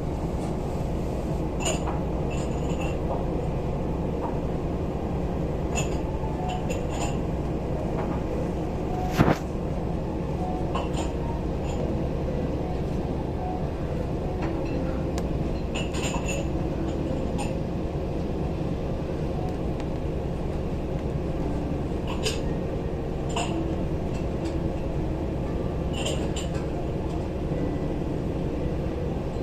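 Steady low drone of the cruise ship Royal Wing's engines, heard on board while under way, with scattered light clinks and one sharper knock about nine seconds in.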